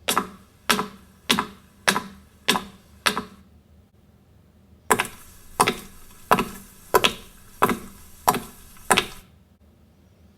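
A run of sharp, evenly spaced knocks, about one and a half a second: six, a pause, then seven more.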